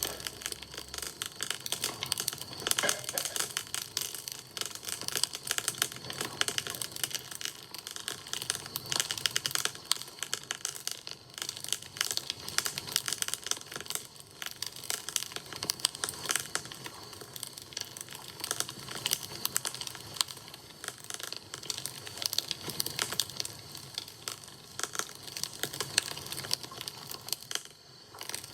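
Wood fire crackling, a dense, irregular run of small snaps and pops.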